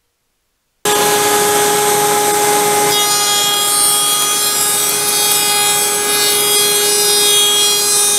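Router mounted in a router table running at speed with a steady high whine while a board is fed along the fence past the bit. The sound cuts in abruptly about a second in, and the cut becomes fuller about three seconds in.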